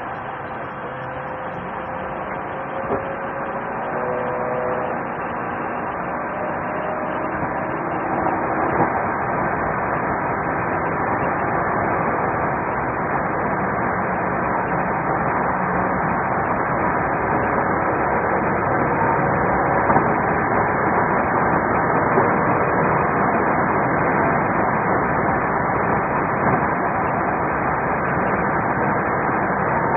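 Steady engine and road noise inside a highway patrol car driving at high speed in pursuit, slowly growing louder, with a few faint clicks.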